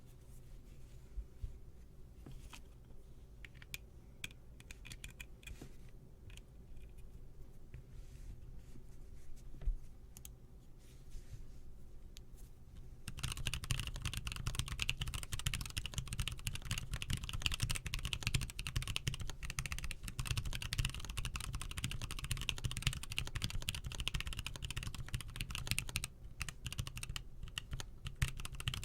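Custom mechanical keyboard being typed on: a few scattered keystrokes for roughly the first half, then fast continuous typing, louder, with a short pause near the end.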